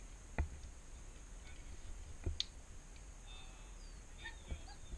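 A few sharp clicks with a low knock in them, about two seconds apart.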